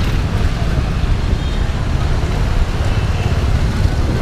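Steady wind rumble on the microphone of a camera riding along on a bicycle, mixed with road traffic noise.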